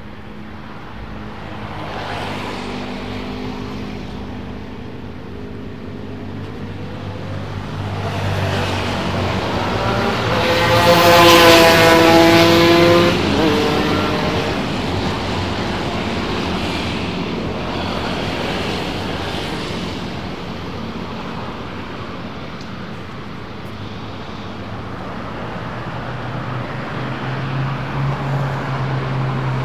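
Road traffic: a steady hum of engines and tyres, with one vehicle passing close about eleven seconds in. Its engine note is the loudest sound.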